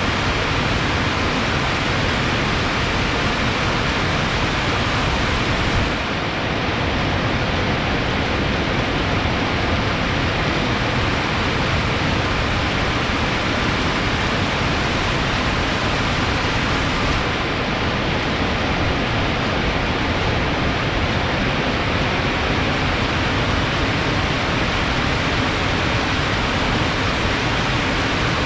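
Water rushing fast and steady in a continuous hiss, its flow swollen after rain.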